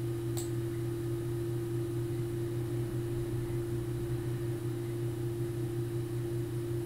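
Steady electrical hum on the recording: a low hum with a steady, higher tone above it, unchanging throughout. One brief click about half a second in.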